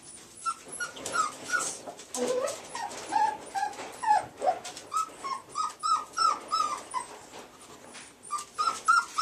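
A litter of young puppies whimpering and squeaking, many short rising-and-falling cries overlapping one another, easing off briefly around eight seconds in.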